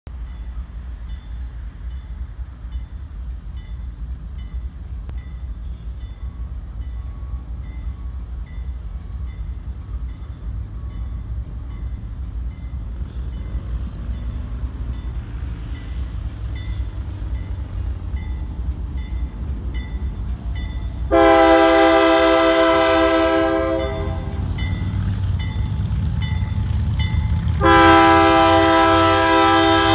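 Lead locomotive's Nathan K3LA five-chime air horn sounding a chord in two long blasts, the first about two-thirds of the way in and the second near the end. Beneath them is the low rumble of the approaching diesel locomotives, slowly growing louder.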